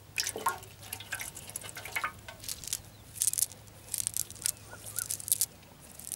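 A fishing cast net being lifted and shaken out by hand over grass: irregular rustling crackles of the mesh, with bits of mud and weed pattering down.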